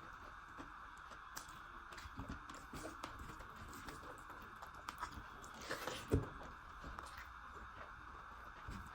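Close-miked chewing and mouth sounds of a person eating a meal of rice and chicken, with scattered small wet clicks and a louder smack about six seconds in, over a steady background hiss.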